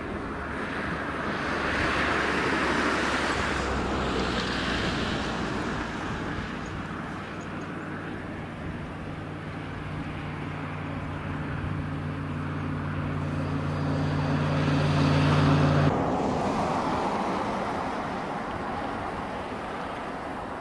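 Jet engines of a four-engine Boeing OC-135B at takeoff power on its takeoff roll, a loud steady rumble that swells twice as the aircraft runs away down the runway. A steady low drone sounds under it and cuts off suddenly about sixteen seconds in.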